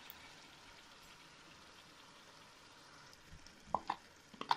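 Minced meat sizzling steadily in a steel pot as yogurt is poured in. Near the end a wooden spoon knocks sharply several times while it scrapes the last of the yogurt out of a plastic cup.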